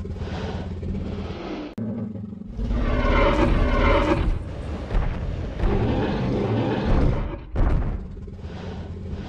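Dinosaur roar sound effect: a long growling roar beginning about two and a half seconds in and lasting around four seconds, over a deep low rumble.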